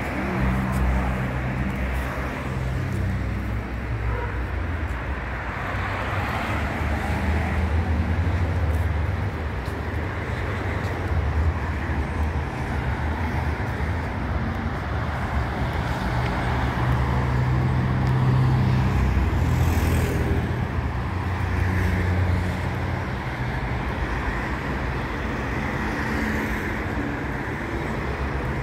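City street traffic: car engines and tyres on the road, a continuous hum that swells and fades as vehicles pass.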